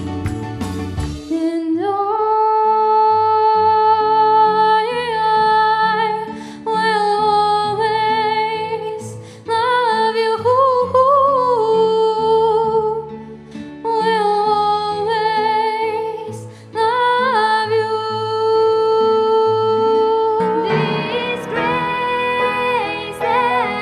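A girl's solo singing voice over instrumental accompaniment, a slow song with long held notes. About 20 seconds in it cuts to a different song.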